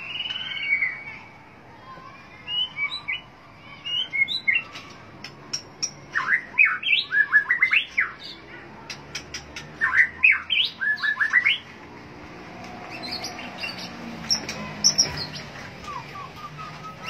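White-rumped shama singing: a varied run of quick rising whistles and sharp clicking notes in phrases with short pauses between them, busiest in the middle stretch.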